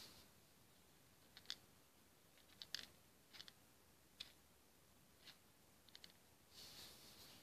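Small, sharp plastic clicks as Hama beads are set one by one onto the pegs of a plastic pegboard, about eight or nine scattered taps, some in quick pairs, with a short soft rustle near the end.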